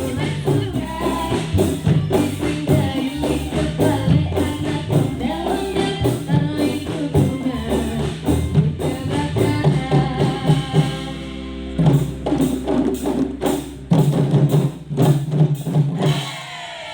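Live band music played through a PA sound system during a rehearsal and sound check: drums and tambourine keep a steady beat under a pitched melody line. The music drops briefly about two-thirds of the way in, then comes back before fading near the end.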